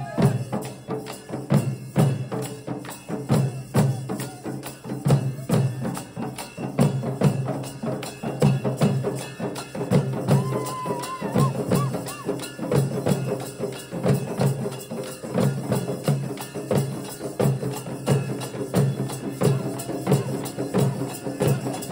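Dollu Kunitha drumming: several large dollu barrel drums beaten together in a fast, driving folk rhythm.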